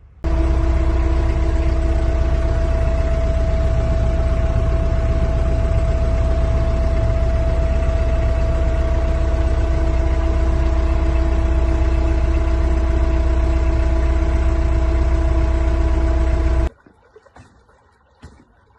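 An engine running steadily with a constant hum and deep rumble, starting abruptly and cutting off suddenly near the end.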